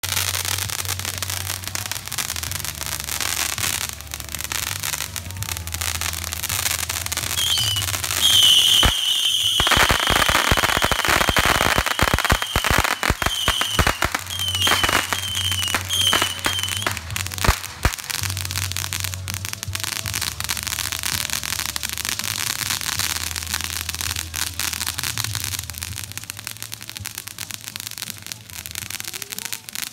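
Consumer fireworks going off: a ground-launched multi-shot cake firing a rapid run of bangs and crackling. Shrill whistles sound from about 8 to 17 seconds in, where the bangs are densest and loudest.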